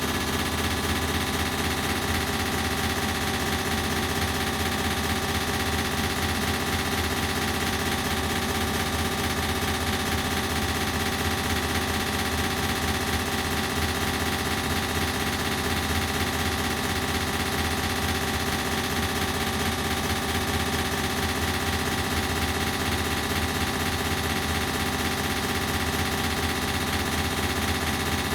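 Ceiling fan running steadily, a constant humming drone made denser by added echo effects.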